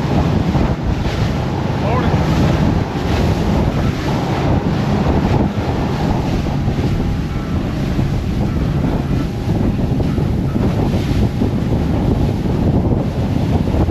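Wind buffeting the microphone over water rushing and splashing around a boat at sea, in rough, choppy conditions.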